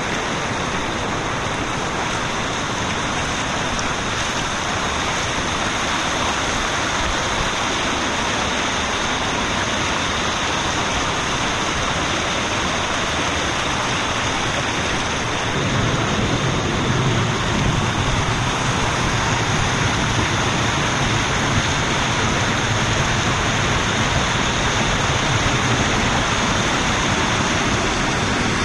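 Waterfall: a steady rush of falling water, growing a little louder and deeper about halfway through.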